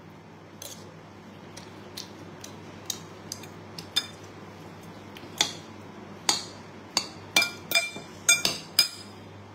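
A metal spoon and fork clinking and scraping against a ceramic bowl while mixing and scooping rice. Scattered light taps at first, then louder clinks coming closer together in the last four seconds, some with a short ring.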